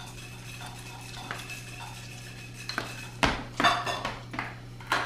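Small tea-party dishes and cups clattering and clinking on a table as they are handled, with several sharp knocks in the second half.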